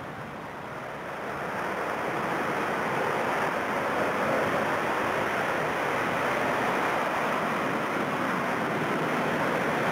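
Jet engines of a four-engine Airbus A340-300 running as it rolls along the runway. It is a broad rushing noise that grows louder over the first few seconds, then holds steady.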